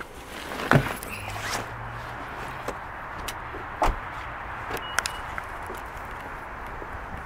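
Camera handling noise: rustling and knocks as the camera is carried and jostled, with two sharp thumps, one about a second in and one about four seconds in, over steady outdoor background noise.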